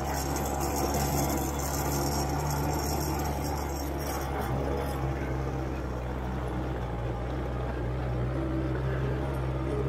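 ATV (quad bike) engine running steadily while riding over sand, with wind rushing over the microphone, the wind strongest in the first few seconds.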